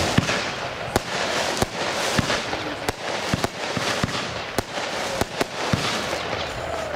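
Weco 'Insomnia' consumer firework battery firing in quick succession, about two sharp bangs a second as the shots launch and burst, over a continuous crackle and hiss.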